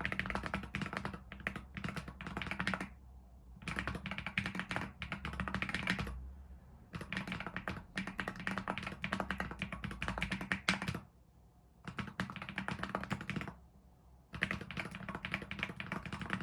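Typing on a MonsGeek FUN60 Ultra keyboard with Gateron Magnetic Jade Pro switches, modded with EVA foam, tape and cotton: fast runs of keystrokes broken by short pauses. The sound is slightly clacky rather than creamy.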